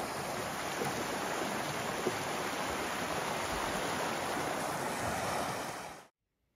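Steady rush of a stream running over rocks, fading out quickly near the end.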